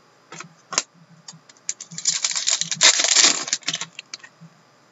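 Hockey trading cards handled and flipped through by hand: a few light clicks, then a dense, crisp clattering rustle of cards about two seconds in that lasts under two seconds.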